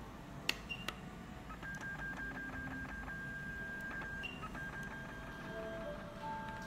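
3D HIFU face-lifting machine beeping as its handpiece delivers a treatment line. A sharp click comes about half a second in with a short high beep, then a steady beep is held for about two and a half seconds, with another short high beep after it and the tone then going on in short broken pulses.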